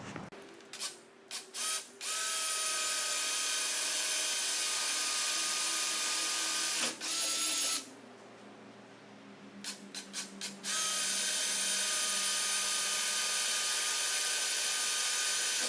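Power drill with a pilot bit just under 1/8 inch boring pilot holes for self-tapping screws. It gives a few short trigger blips, then a steady run of about six seconds. After a pause come more quick blips and a second steady run of about five seconds.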